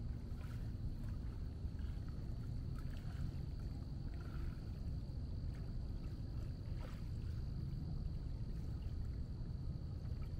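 Lakeshore outdoor ambience: a steady low rumble with scattered faint light ticks and a thin steady high tone.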